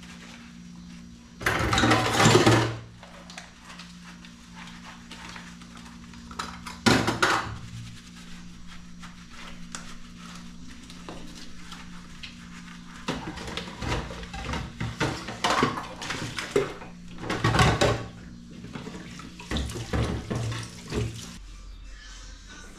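Dishes being washed by hand at a kitchen sink: the tap runs in several spells while plastic jugs and cups clatter and are scrubbed. A steady low hum sits underneath and stops near the end.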